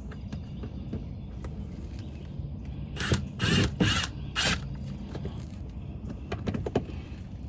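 Hand tool working fasteners back in under the front of a car: small mechanical clicks, with four louder rasping strokes about three to four and a half seconds in.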